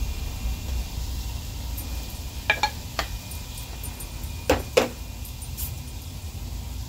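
Spice containers clinking as they are handled while seasoning a dish: two pairs of sharp clinks about two seconds apart, over a steady low rumble.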